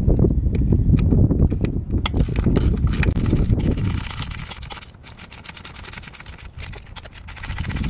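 Socket ratchet clicking in short irregular runs as bolts are worked at the dirt bike's handlebar mount. A low rumble is loudest in the first half and fades about four seconds in.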